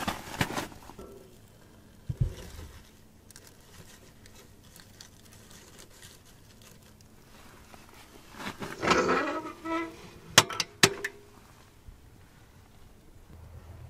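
Split birch firewood being pushed into a small steel wood stove's firebox, knocking and then scraping against the metal, followed by two sharp metallic clicks as the stove door is shut and latched.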